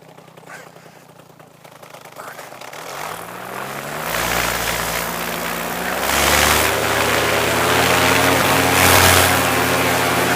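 Polini two-stroke paramotor engine and propeller revving up about three seconds in, rising in pitch, then running loud and steady with two louder surges of throttle. The engine is running well on a new exhaust silencer.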